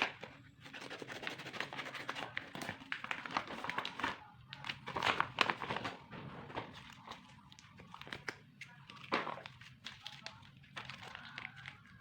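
Plastic packaging crinkling and rustling as it is handled and torn open, in a run of irregular crackles and clicks, loudest about five seconds in and again near nine seconds.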